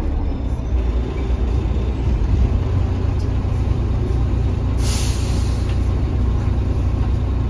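Inside a Mercedes-Benz OH1830LE bus: steady low rumble of its OM926 inline-six diesel, with a short hiss of released compressed air from the bus's pneumatic system about five seconds in.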